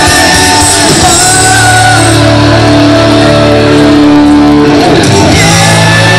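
A rock band playing live and loud, with singing and electric guitar; a long held note sounds from about two seconds in for nearly three seconds.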